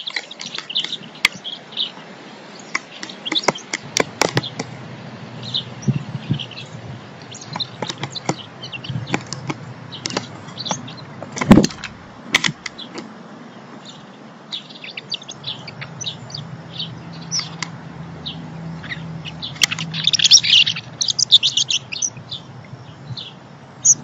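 Small birds chirping and tweeting on and off, busiest about twenty seconds in, with scattered sharp knocks. The loudest knock comes about halfway through, as a dove lands on the bird bath.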